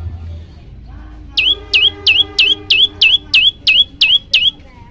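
Prenjak lumut singing: a rapid run of about ten identical loud notes, about three a second, each a sharp downward sweep with a short upturn at the end. A fainter steady hum sits beneath.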